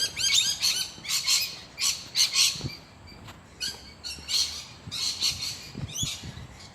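Birds squawking: a dense run of short, harsh calls in quick succession, thinning out in the middle and picking up again near the end.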